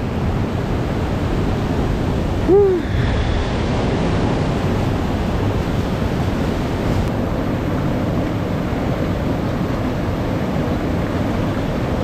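Mountain stream water rushing steadily over rocks. About two and a half seconds in there is one short pitched sound that rises and falls.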